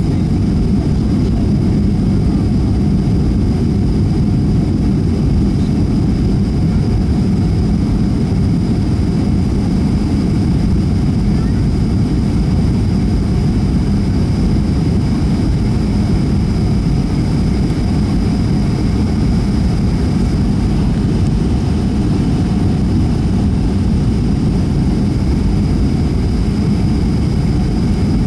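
Cabin noise inside a Boeing 757-300 in flight: the steady roar of the jet engines and airflow over the fuselage, with a thin steady whine above it.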